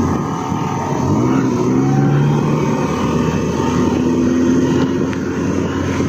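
Off-road 4x4 vehicle engine running under way. Its revs rise and fall about a second in, then hold steady, over a constant rumbling noise.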